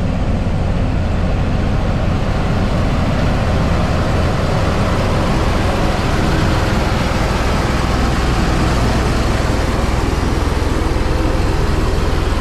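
Heavy diesel engine of road-building machinery running steadily, a continuous low rumble that neither rises nor fades.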